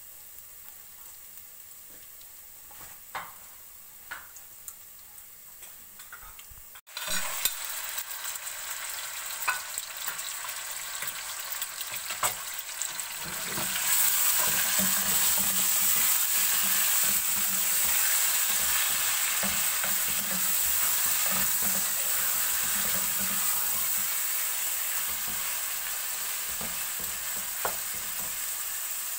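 Garlic paste frying in oil in an aluminium pot: a soft sizzle with the spoon tapping and scraping against the metal. About fourteen seconds in, raw chicken pieces go into the hot oil and the sizzle turns loud and steady, with stirring clicks throughout.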